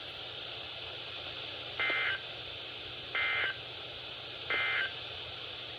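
Three short bursts of warbling SAME data tones, about a second and a third apart, over a steady radio hiss. They are the Emergency Alert System end-of-message (NNNN) code that closes the warning.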